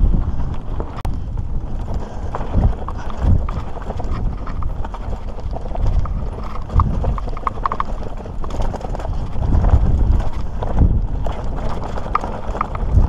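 Mountain bike rolling over a rocky, gravelly dirt trail: a steady low rumble from the tyres and bumps on the camera, with an irregular clatter of stones and rattling bike parts.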